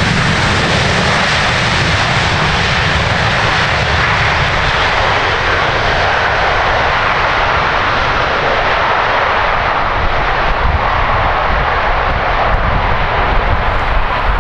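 Jet airliner's engines, a loud, steady rush with a low rumble beneath.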